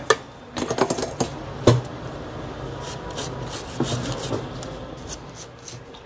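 Scattered light clicks and taps of small hand tools, such as tweezers, against a phone's circuit board and display connector during a repair, with one sharper click early on and a few more a few seconds later. A faint steady hum runs underneath.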